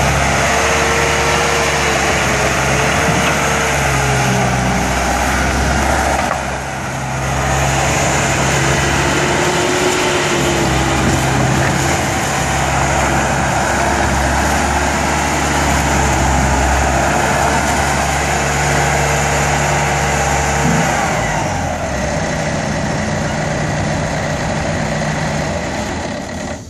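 Bobcat T200 compact track loader's diesel engine running steadily, with a higher whine that wavers in pitch over it; a little after twenty seconds the engine note drops lower and keeps running.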